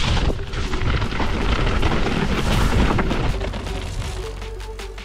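Mountain bike riding down a rough trail, heard from an on-bike action camera: wind buffeting the microphone as a loud low rumble, with rattles and knocks of the bike over the ground.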